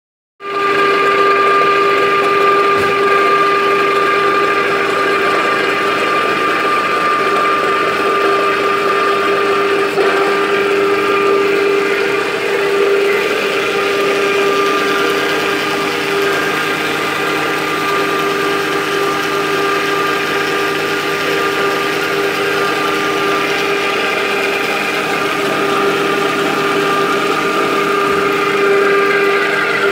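Oil-mill machinery running steadily: a constant whine over a mechanical drone.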